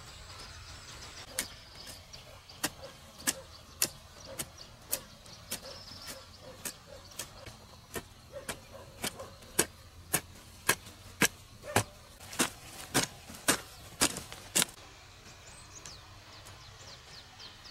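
A steady series of sharp knocks, about two a second, growing louder and then stopping about three seconds before the end.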